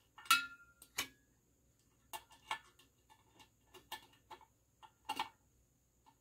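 Irregular metallic clicks and taps of a screwdriver turning the set screws on a ceiling fan's down-rod collar, metal on metal. The loudest click comes about a third of a second in, with a short ring.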